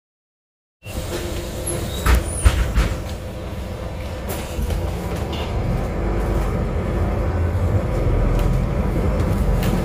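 Solaris Urbino 12 III city bus heard from inside, near the front, while driving: steady engine and road rumble that cuts in after a moment of silence, with a few knocks and rattles about two seconds in. The rumble grows slightly louder in the second half.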